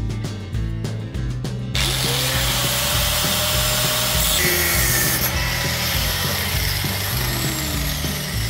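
Angle grinder with a thin cut-off disc starting up about two seconds in and cutting through a steel exhaust header pipe: a loud, steady hiss of disc on metal, with the motor's pitch rising and dipping under load. Background music plays under it.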